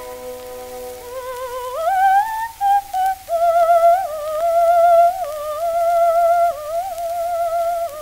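Background music: a held chord fades about a second in, and a single wavering electronic melody line with heavy vibrato takes over, sliding upward and then hovering around one pitch.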